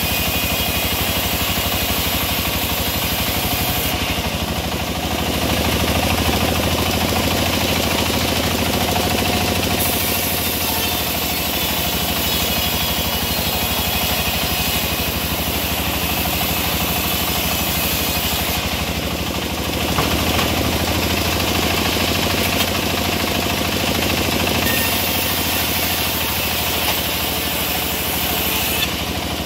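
Engine-driven wood saw running steadily while milling teak, a continuous engine drone with a high hissing cutting noise that fades and returns several times.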